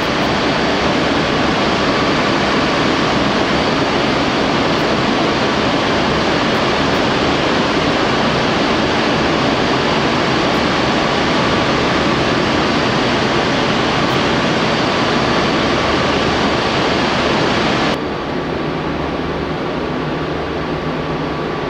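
Loud, steady rushing roar of industrial plant noise, such as fans or running machinery, in a large steel mill bay, with a faint high whine held through it. About 18 seconds in, it cuts abruptly to a quieter, lower hum.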